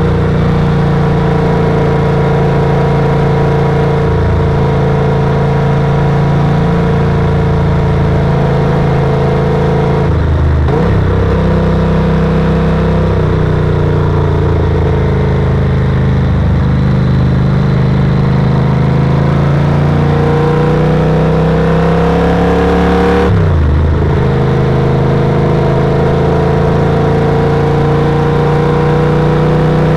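Yamaha TRX850 parallel-twin engine running under load, heard onboard with road and wind noise. The engine note climbs slowly and breaks briefly twice. After the second break, about 23 seconds in, it drops and climbs again, as at an upshift.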